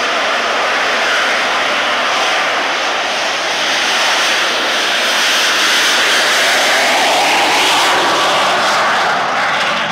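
Rolls-Royce Nimbus helicopter gas-turbine engine powering a classic Mini, running loud and steady with an even jet-like rush as the car drives off down the drag strip. It gets a little louder about halfway through.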